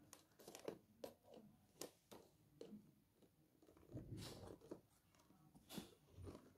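Faint, irregular snips and crackles of scissors cutting into a cardboard toy box with a plastic window, with some rustling as the box is handled.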